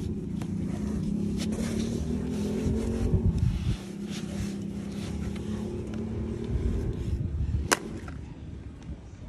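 A motor running with a steady hum and some low rumble, and one sharp click near the end.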